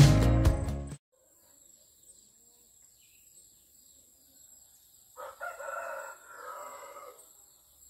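Background music fades out about a second in; then, after a quiet stretch, a rooster crows once near the end, one call of about two seconds in two parts.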